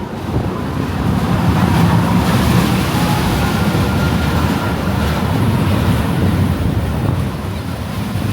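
Steel roller coaster train rumbling along its track, with wind rushing over the microphone. The noise swells just after the start and eases off near the end.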